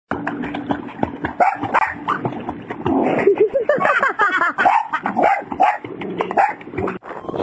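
A small dog barking and yipping excitedly while it swims, with water splashing around it.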